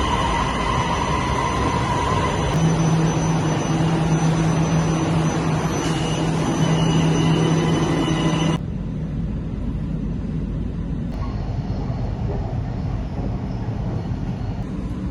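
Steady running noise of a moving vehicle, heard from inside, with a low hum and a few faint steady tones. About eight and a half seconds in it cuts abruptly to a quieter, duller steady noise.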